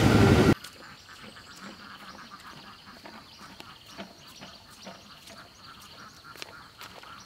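A louder noise cuts off about half a second in, leaving faint outdoor ambience of frogs croaking, with scattered small clicks and chirps.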